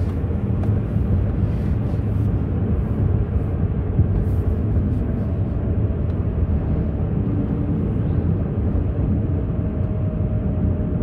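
Steady low road-and-engine rumble of a moving car, heard from inside the cabin.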